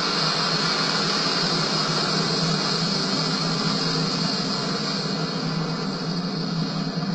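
F-16 fighter jet's engine running, a loud, steady jet roar with no rise or fall during the pass.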